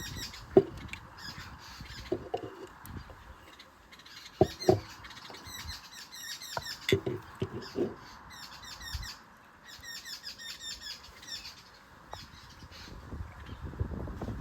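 Small birds chirping and twittering repeatedly, with a crow cawing among them, while several sharp knocks and clatters of handling stand out about half a second in, around four and a half seconds in, and between seven and eight seconds.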